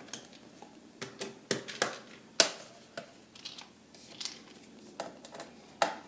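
Irregular light clicks and taps from hands working on the plastic underside of a ThinkPad P50 laptop during screw removal, about nine clicks spread over a few seconds. The loudest comes about two and a half seconds in, with another near the end.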